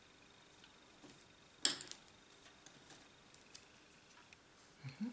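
Small nail-art tools being handled on a table: one sharp click about a second and a half in, then a few faint ticks and a couple of soft knocks near the end.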